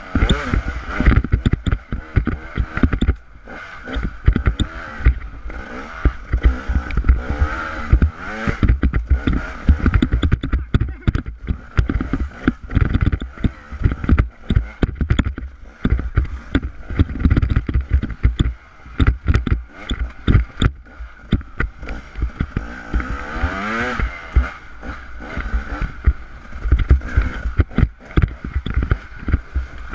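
Continuous jolting, rattling and low rumble from a ride along a rocky dirt singletrack, with the camera shaken by the rough ground. Brief rising sweeps come about eight seconds in and again near the end.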